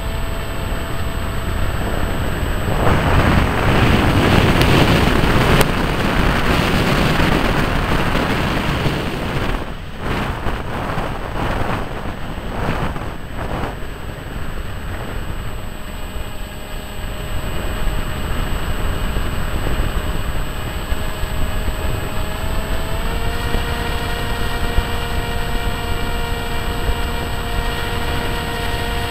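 Hawksky RC plane's electric motor and propeller in flight, picked up by the onboard camera's microphone: a steady whine under rushing wind noise. The wind rushes louder from about three seconds in for several seconds, then gusts, and a little over twenty seconds in the whine steps up slightly in pitch.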